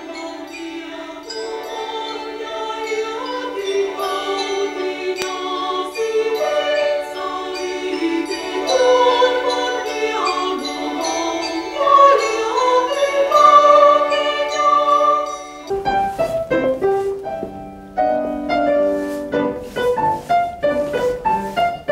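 A choir singing a slow, sustained melody. About sixteen seconds in it cuts abruptly to piano playing mixed with sharp taps and knocks.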